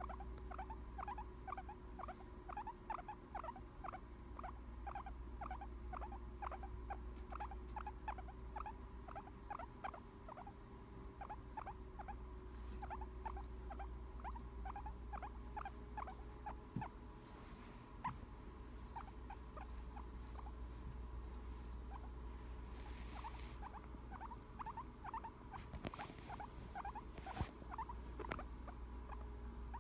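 A guinea pig making its contented, happy sound: a quick, steady run of short, soft squeaky notes, several a second, that keeps going without a break.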